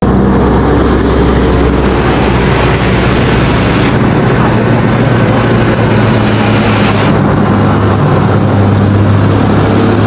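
Road traffic: an Isuzu FVR box truck's diesel engine running with a steady low drone as it comes along the road, mixed with motor scooters passing.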